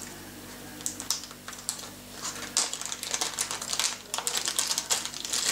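Small clear plastic parts bag crinkling and crackling in irregular bursts as it is opened and handled, over a faint steady low hum.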